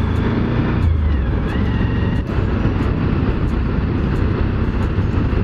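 Suzuki V-Strom 1000's V-twin engine running steadily at road speed, with wind rushing over the rider's microphone.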